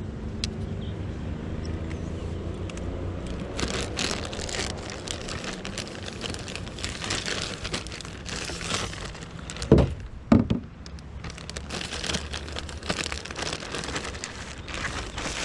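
Rustling and crinkling from gear being handled, with two heavy thumps close together about ten seconds in. A low steady hum runs through the first few seconds.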